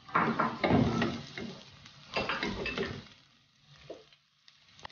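Onion pieces sizzling in hot oil with garlic as a wooden spoon stirs them around a square frying pan, in two spells of about a second each, then a couple of light taps.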